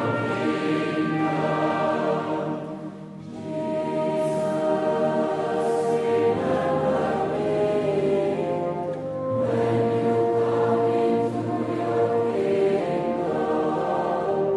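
Choral music: slow, sustained chords from a choir, with a brief lull about three seconds in.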